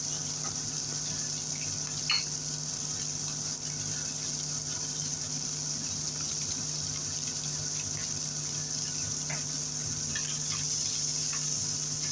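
Beef slices sizzling steadily as they fry in butter and oil in a frying pan, with a short click about two seconds in.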